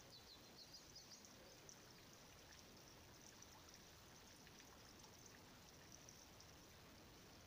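Near silence: faint outdoor background hiss with a few faint, short, high chirps in the first two seconds.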